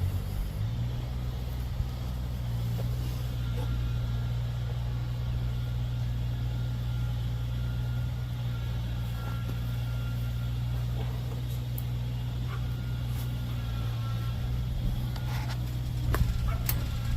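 Husqvarna Z254 zero-turn mower engine running steadily, its speed picking up slightly under a second in, during a test run after a PTO clutch and belt job.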